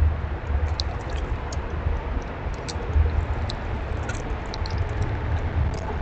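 Outdoor background: a steady, uneven low rumble with scattered short, high ticks and chirps.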